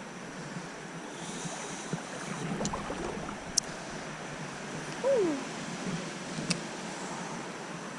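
Creek water running steadily, with two sharp clicks and, about five seconds in, a short falling tone that is the loudest sound.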